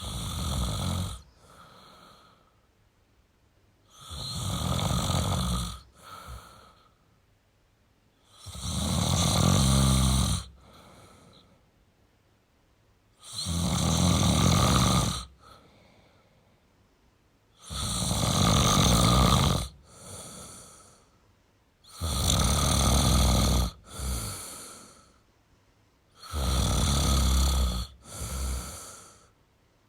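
A sleeping person snoring with loud, rasping snores about every four to five seconds, each followed by a shorter, quieter breath.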